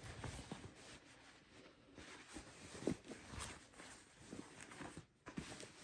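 Faint rustling of a cloth drawstring dust bag being loosened and pulled open by hand, with a few soft taps of handling.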